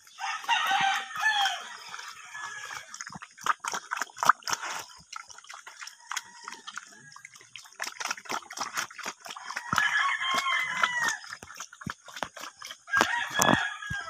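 A rooster crows several times: at the start, about ten seconds in and again near the end. Under it a pig smacks and slurps as it eats wet mash from a tire trough.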